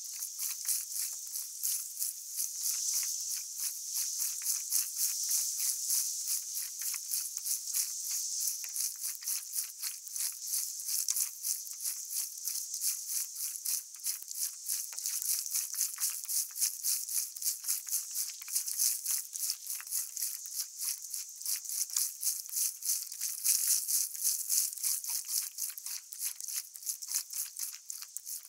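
Water splashing and fizzing against the front of a moving stand-up paddleboard, close to the camera: a fast, irregular, high crackle that keeps on without a break.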